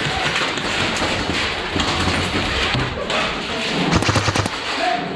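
Repeated thumps and sharp clicks over a steady noisy background, from indoor airsoft play.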